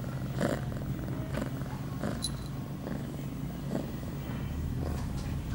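Female ragdoll cat in heat purring steadily close to the microphone, with short puffs of breath or fur rustle about once a second and a brief high squeak a little after two seconds in.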